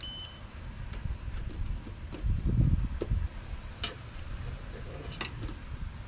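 A Fieldpiece clamp meter gives one short, high beep as its two test leads touch together. After it there is low rumbling noise and a few light clicks.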